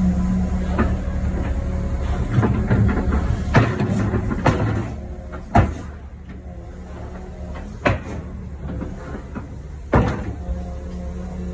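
Komatsu hydraulic excavator's diesel engine running at idle with a steady low hum, over which come five sharp metallic clunks a second or two apart. The hum drops somewhat about five seconds in.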